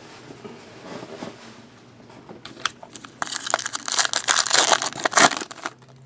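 Crinkling and tearing of a trading-card pack wrapper as a pack is opened. It is faint at first, then loud and crackly for about three seconds from roughly two and a half seconds in.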